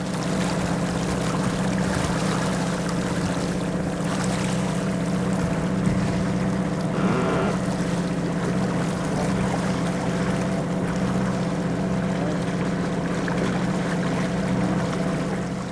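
Boat engine running at a steady speed under way, with water and wind noise over it.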